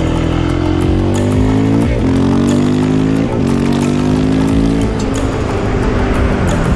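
KTM 690 SMC R single-cylinder supermoto engine accelerating under way, its note climbing with two quick breaks for upshifts about two and three seconds in, then easing off near the end. Background music plays underneath.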